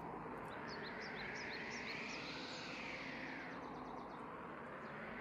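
Birds chirping in quick short rising calls through the first half, over a faint outdoor hiss.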